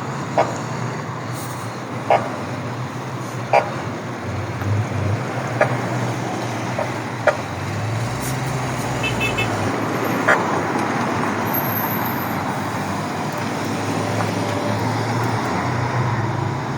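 Road traffic running steadily, with a low hum under it and a short sharp click every second or two. No siren is heard.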